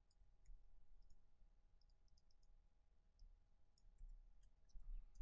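Near silence broken by faint scattered clicks from a computer mouse and keyboard in use.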